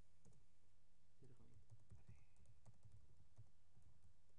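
Faint typing on a computer keyboard: irregular key clicks over a low, steady electrical hum.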